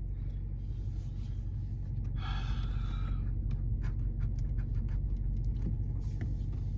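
Steady low rumble with scattered light clicks of plastic trim being handled, and a short breathy hiss a little over two seconds in.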